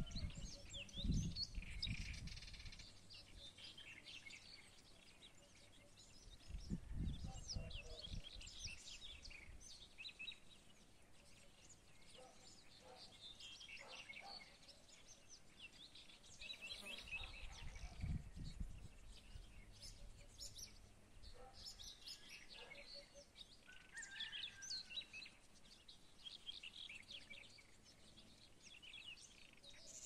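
Many small songbirds chirping and singing together in quick, high notes. A few low rumbles of wind on the microphone come near the start, about 7 seconds in and about 18 seconds in.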